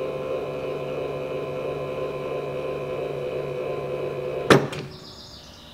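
Electric linear actuator salvaged from a medical device, its motor humming steadily as it extends and tips up a wooden dump bed. About four and a half seconds in there is a single loud clunk, and the motor stops.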